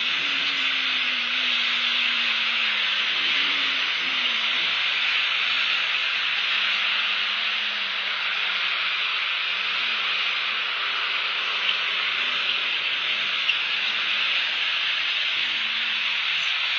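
Steady hiss of heavy rain falling on the nest, with a faint low hum wavering underneath.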